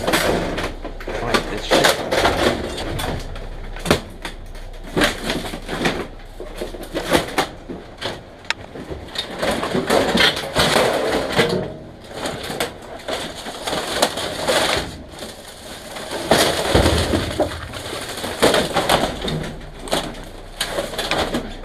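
Rummaging through discarded electronics and junk: irregular clattering, knocking and crunching of hard plastic and metal items being shifted and handled, with many sharp knocks.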